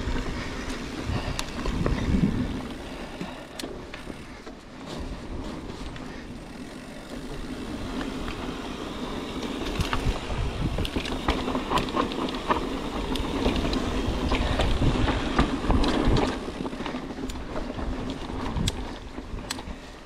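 Mountain bike rolling down a dirt singletrack: tyres running over the dirt with a steady rattle and sharp clicks from the bike, growing louder around two seconds in and again from about thirteen to sixteen seconds in.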